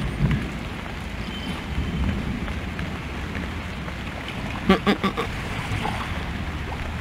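A hooked carp thrashing at the surface close to the bank, with a quick run of three loud splashes about five seconds in, over steady wind noise on the microphone.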